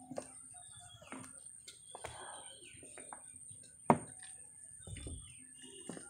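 Footsteps knocking on a wooden plank boardwalk, about one step a second, with one sharp, loud knock about four seconds in. Birds give short falling calls over a steady high-pitched tone.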